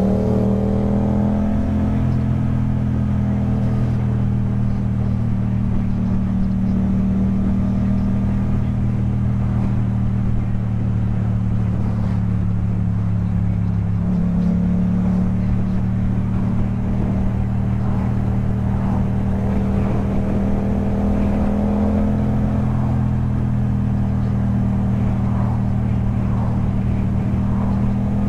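Yamaha MT-07's parallel-twin engine breathing through an Akrapovič exhaust, running steadily at an even cruising pitch with small shifts in engine speed.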